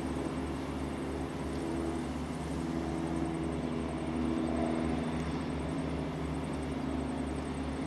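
Steady low drone of an engine running, with a low hum and a faint hiss over it.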